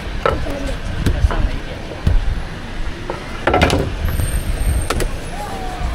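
Busy street-food stall ambience: voices talking in the background over a steady low rumble, with several sharp knocks and clicks, the loudest a short cluster about three and a half seconds in.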